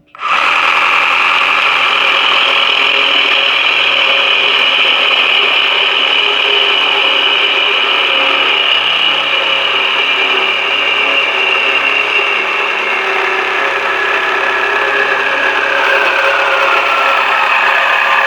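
Electric power tool running continuously while cutting metal, with a steady high whine; one tone in it slowly falls in pitch over the last few seconds, as the tool bogs under load.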